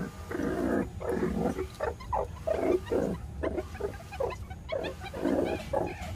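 Huddled meerkats calling in many short, rough, irregular bursts, over a steady low hum.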